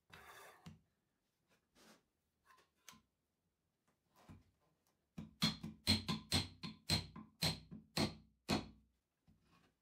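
A brief scrape, a few light knocks, then about five seconds in a run of about eleven sharp metallic knocks, each ringing briefly, about three a second: the steel rod and aluminium parts of the copy carver being tapped.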